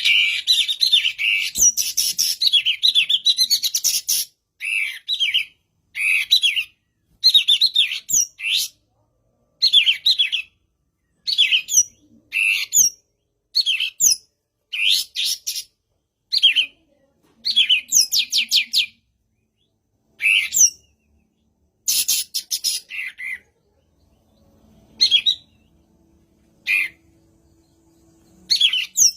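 A kapas tembak songbird singing: a dense run of quick high chirping notes for the first four seconds, then short bursts of rising and falling notes every second or two with silent pauses between.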